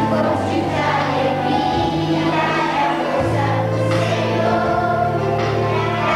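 Children's choir singing a song together, over an instrumental accompaniment with a bass line that steps from note to note.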